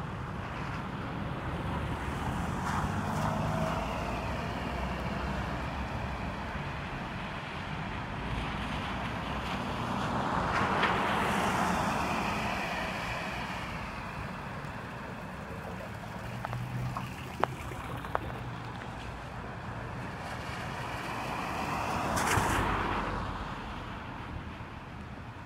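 Cars driving past on a wet street, their tyres hissing on the wet asphalt. Two pass close, about eleven seconds apart, each swelling up and fading away over a steady low rumble of traffic. Two sharp clicks sound between the passes.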